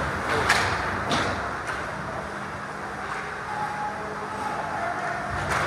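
Ice hockey play on an indoor rink: skate blades scraping and carving on the ice. Sharp clacks of stick and puck come about half a second in, again a second in, and near the end.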